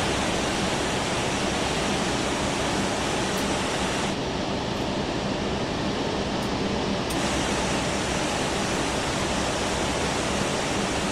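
Steady rushing hiss of airliner cockpit noise during taxi. It starts abruptly, and its brighter upper part drops away about four seconds in and comes back about three seconds later.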